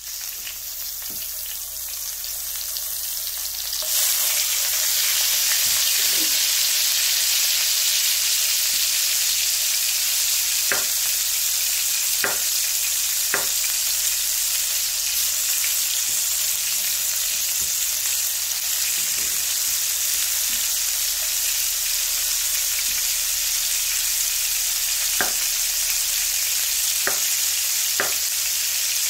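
Tomato halves frying cut-side down in hot sausage fat in a cast-iron skillet: a steady sizzle that grows louder about four seconds in. A few sharp clicks come through it, a cluster about halfway and a few more near the end.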